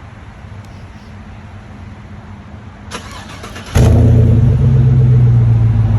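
2018 Chevy Tahoe LT's 5.3L V8 cranked by its starter about three seconds in, firing almost at once and flaring loudly before settling toward idle. The exhaust has the resonator deleted and a straight-through Borla muffler, with the three catalytic converters kept.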